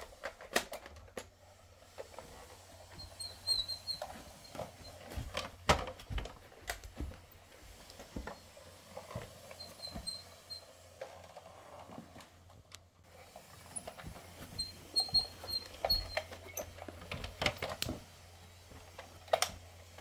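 Hard plastic toy tractor and trailer pushed over carpet by hand: scattered clicks and knocks of plastic parts and wheels, with a few brief high chirps now and then.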